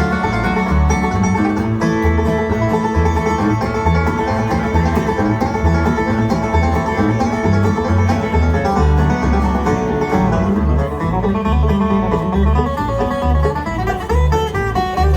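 Live bluegrass band playing an instrumental break, with banjo and guitar picking over a steady, bouncing two-beat bass line.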